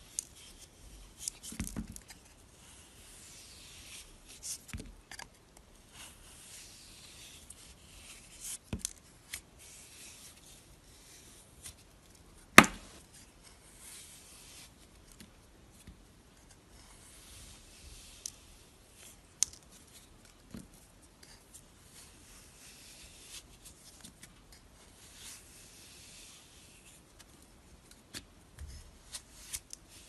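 Knife blade and a ridged plastic tool cutting and scraping a bar of soap: scratchy scraping with scattered crisp crackles, and one much louder sharp crack near the middle.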